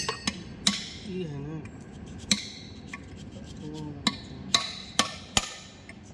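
Hand hammer striking steel, about eight sharp ringing taps at irregular intervals.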